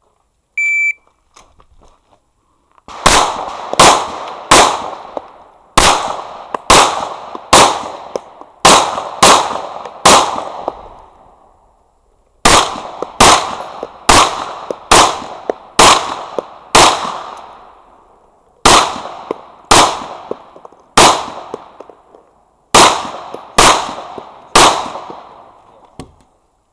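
An electronic shot timer beeps once, then a pistol fires rapid strings of shots, roughly two to three a second, in four strings with short pauses between them.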